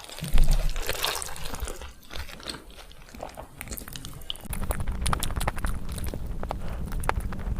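Close-miked eating: a loud crunchy bite near the start, then steady chewing with many wet mouth clicks.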